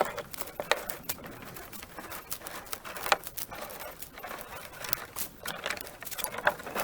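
Irregular clicks, knocks and rustling of cut branches and twigs being handled and shifted in a small boat, with a sharper knock about three seconds in and another near the end.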